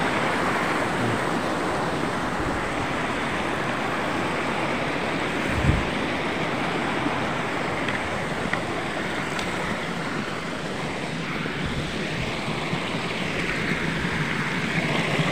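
Shallow stream rushing and splashing between boulders: a steady hiss of water. About five and a half seconds in, a single dull thump.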